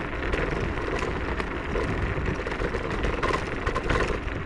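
Techlife X7S electric scooter riding over a rough, muddy forest track: a steady rumble of tyres and wind on the microphone, with scattered knocks and rattles from the ride.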